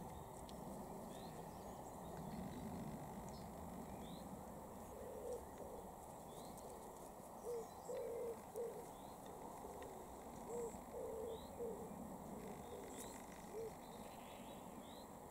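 A pigeon cooing in repeated phrases of a few low notes, starting about five seconds in. Over it, a small bird calls in short high notes every second or so, against a faint steady background hiss.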